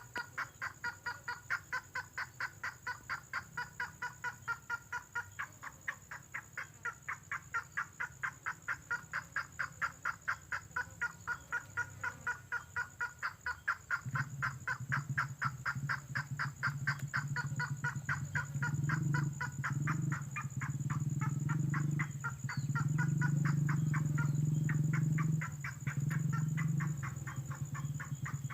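Lure recording of red tengkoah bird calls: a fast, even train of short pulsed notes, about five a second, which grows fainter through the second half. From about halfway a loud low drone sets in beneath it, breaking off briefly a few times.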